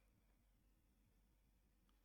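Near silence: a practice pause with only faint background hiss.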